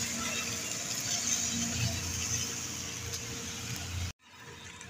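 Shipyard ambience: a steady machine hum under general work noise. It cuts out abruptly about four seconds in and comes back quieter.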